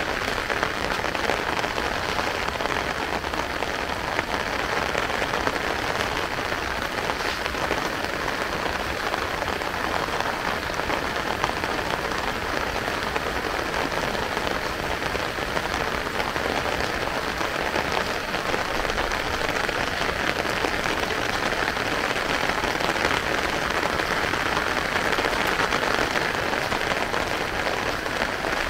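Heavy rain falling: a steady, unbroken hiss of rain on surfaces.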